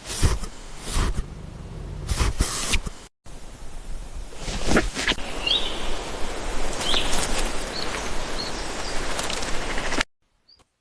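Outdoor rustling and handling noise with several knocks, and a few short, high bird chirps in the middle; the sound cuts out abruptly twice.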